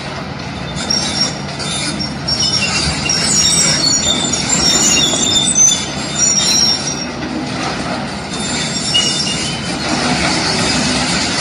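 Loud high-pitched metal squealing and screeching, many short shrill squeals coming thick and fast over a steady low rumble of heavy machinery, easing off about seven seconds in and then returning.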